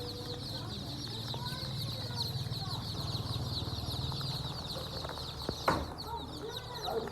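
A flock of chickens clucking, over a dense, continuous chorus of short high peeps and a low steady hum, with one sharp knock about five and a half seconds in.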